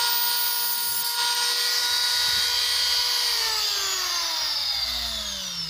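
Small high-speed rotary tool cutting the leads of a bridge rectifier on a circuit board, running with a steady high whine. It is switched off about three seconds in and spins down, its pitch falling away.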